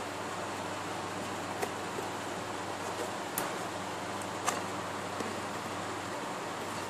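A few faint, scattered clicks and light rustles of fingers working at a cardboard box's flaps and tape, over a steady background hiss. The sharpest click comes about four and a half seconds in.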